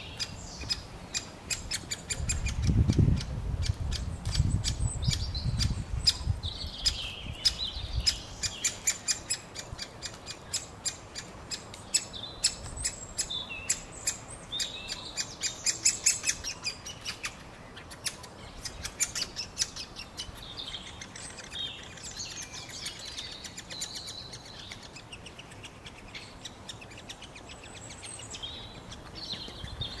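Great spotted woodpecker nestling begging from its nest hole with rapid, incessant sharp chirps. The calls come thickest in the first half, while the parent arrives and feeds it, and thin out afterwards. There is a low rumble a few seconds in.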